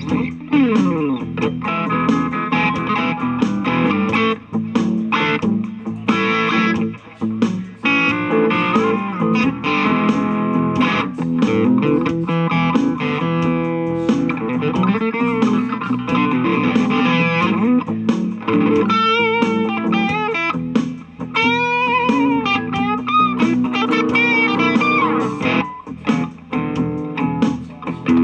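Electric guitar played through an M-Vave BlackBox amp-simulator unit: blues licks of picked single notes and chords, with string bends and vibrato in the second half.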